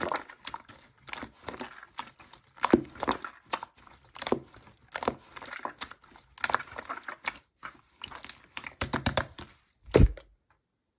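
Slime being squished and stretched by hand: irregular sticky crackles, pops and squelches, with a heavier squelch about ten seconds in before the sound stops.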